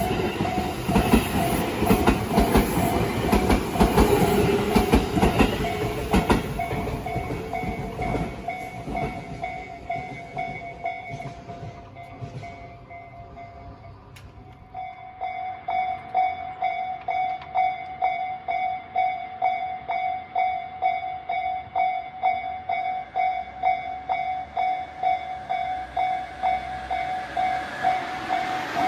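Japanese railway level-crossing warning alarm, a renewed unit, ringing with a steady repeating electronic tone. A train passes over the crossing in the first several seconds, its noise dying away by about eight seconds in. The alarm comes back louder from about fifteen seconds in, and near the end the noise of another train begins to rise.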